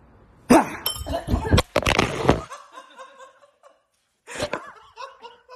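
A sudden loud burst of a scare: shouting and a phone clattering and breaking as it hits the floor, cutting off abruptly after about two seconds. About four and a half seconds in, a second burst is followed by laughter.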